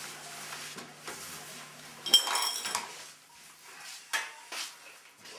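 Dishes and cutlery clinking and rattling on a table, with one loud metallic clatter about two seconds in that rings briefly.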